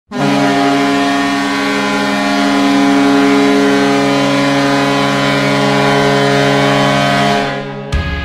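Hockey arena goal horn, a set of Airchime K123, KM-200 and KM-135 air horns, blowing one long multi-note chord for about seven seconds before fading out. Rock music starts just before the end.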